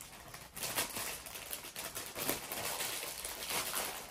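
Plastic packaging bag crinkling and rustling as it is handled, with irregular small clicks and crackles.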